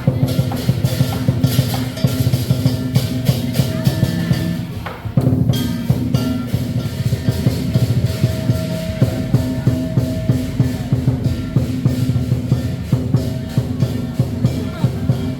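Lion dance percussion: a large Chinese drum beaten in a fast, driving rhythm with crashing cymbals, dipping briefly about five seconds in.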